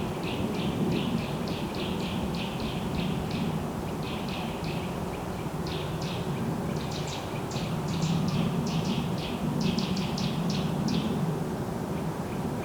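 Forest ambience: a bird calling in quick runs of short, high chirps, about three a second, pausing briefly midway and stopping near the end, over a steady low rumble.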